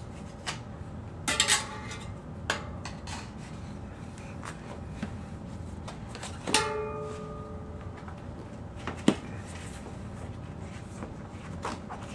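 Metal tool clinking and knocking against a bicycle wheel rim while a tire bead is worked back on, in scattered single clicks, with one ringing clink about six and a half seconds in and a sharp click about nine seconds in.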